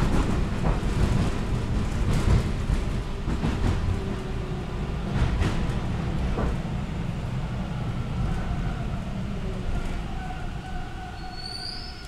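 Toronto subway T-1 train (Bombardier, VVVF inverter control), heard from inside the car, slowing into a station: heavy wheel-on-rail rumble with a few rail-joint knocks gradually eases. In the second half, the traction inverter's whine glides down in pitch, and there is a brief high squeal near the end.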